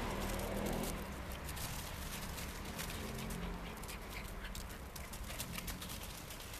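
Dry fallen leaves crunching and crackling in quick irregular clicks under puppies' paws as they scamper and play. A low rumble fades out about a second in.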